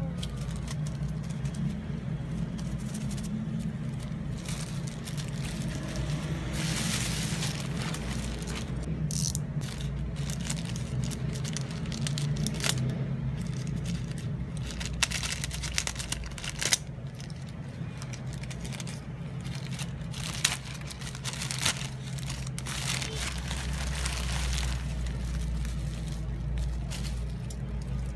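Plastic packaging rustling and crinkling in irregular bursts as a plastic courier mailer, small zip-lock bags of beads and bubble wrap are handled, over a steady low hum.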